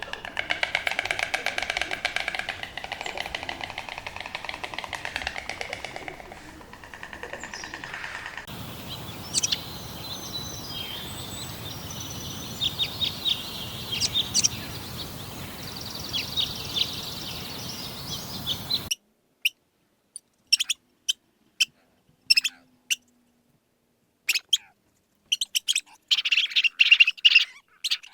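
A rapid buzzing trill for the first several seconds, then birds chirping with many short high notes over a steady background hiss. After that come scattered brief chirps and clicks separated by silent gaps.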